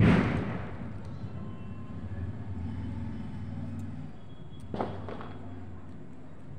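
A sudden loud bang right at the start that dies away over about a second, then a vehicle engine running low in the background, and a second, shorter bang just before five seconds in.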